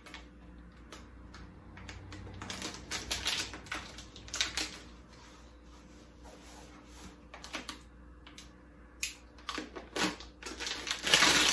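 A metallic foil packaging bag being handled and crumpled, giving irregular crackles and rustles that are loudest near the end.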